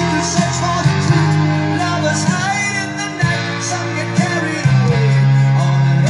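A song with a singing voice, played from a vinyl record on the turntable and heard through the speakers of an Aiwa CX-ZL31 stereo system set to phono.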